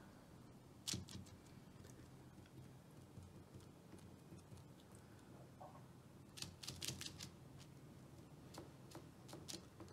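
Faint, scattered clicks and taps of a metal fork against a baking tray: one sharp click about a second in, a quick cluster around seven seconds and a few lighter ones near the end, over a low steady hum.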